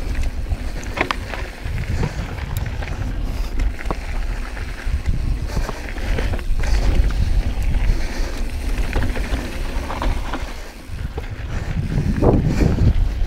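Wind buffeting the action-camera microphone as a Yeti SB6c mountain bike rolls along a dirt singletrack, with the hiss of tyres on dirt and scattered ticks and rattles from the bike. A louder swell of noise comes near the end.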